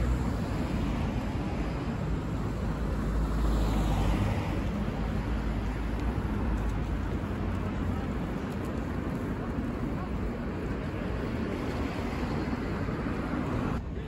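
City street traffic: cars driving past on a road, a steady noisy rumble with one vehicle passing closer about four seconds in.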